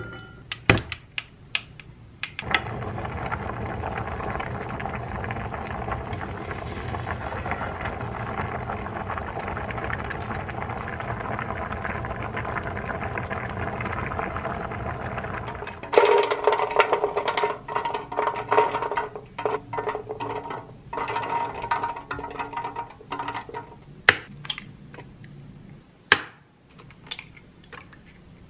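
A pot of soaked chickpeas boiling on the hob, bubbling steadily with a fine crackle. A few clicks come in the first two seconds. After about 16 seconds a louder, choppier sound takes over, and a few sharp clicks come near the end.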